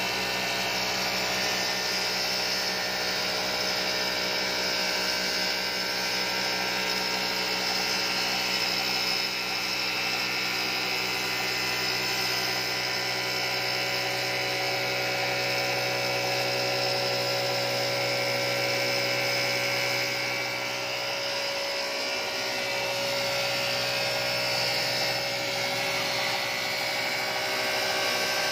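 A machine running steadily with a constant hum and whine, dipping briefly about three quarters of the way through.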